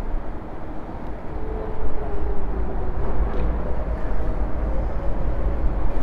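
Wind buffeting the camera's microphone, a loud fluttering low rumble that grows stronger about two seconds in, over faint steady city background noise.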